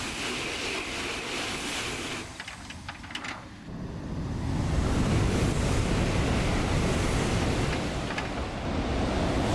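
Shinkansen bullet train passing at high speed very close by: a steady rush of air and running noise that dips briefly about two and a half seconds in, then comes back louder with a deep rumble from about four seconds.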